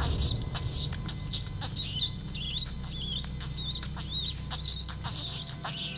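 Predator call sounding a mouse squeak: a steady run of short, high-pitched squeaks, each rising then falling in pitch, about two to three a second, imitating a rodent in distress to lure bobcats.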